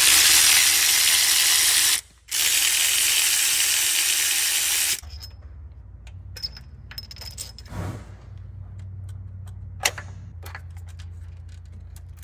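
Cordless ratchet running in two bursts of about two and three seconds, spinning out the cam phaser bolts on a Ford 3.5 EcoBoost V6. After that come a few light metallic clicks and clinks as the phaser and timing chain are handled.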